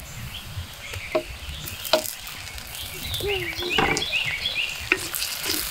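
Small birds chirping in quick repeated notes over a low background rumble, with a few sharp clicks.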